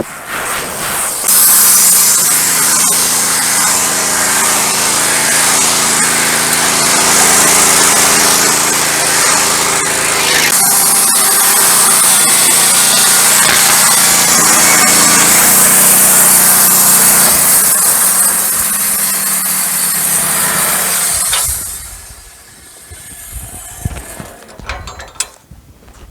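Wood-Mizer LT15 Go band sawmill cutting through a pine log: a loud, steady run of the blade through the wood with a hum underneath. The sawing drops away near the end, leaving a few scattered knocks.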